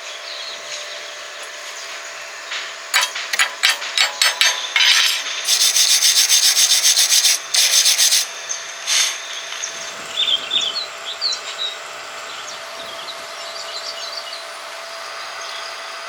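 Hand scrubbing or rasping on metal in quick back-and-forth strokes, about five or six a second, for several seconds. Then a few short bird chirps over a steady background hum.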